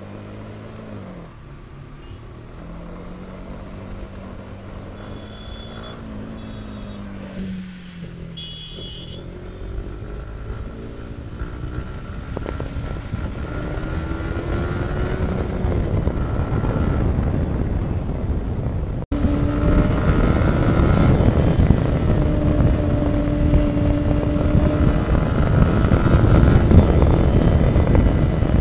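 Motorcycle engine running on the move, its pitch rising and falling with the throttle, getting steadily louder. After a brief break about two-thirds of the way in, it holds a steady pitch.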